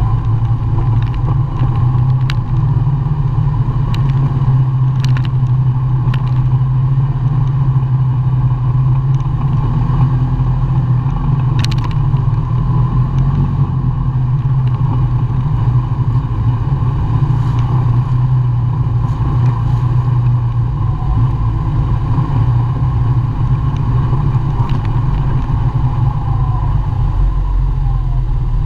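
ATV engine running steadily under way on a dirt trail, with a few short, sharp knocks.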